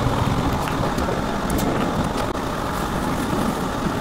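Toronto subway train running along a station platform and into the tunnel, a steady rumble of motors and wheels on rail heard from inside the car, with a few light clicks.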